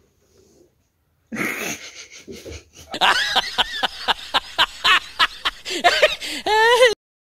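Lion vocalizing: a rough, noisy growl, then a fast run of short grunting calls, about three or four a second, ending in a longer call that rises and falls in pitch and stops abruptly.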